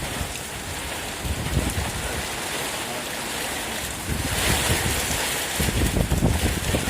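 Storm wind and rain, with gusts buffeting the microphone in low rumbles that grow stronger about four seconds in.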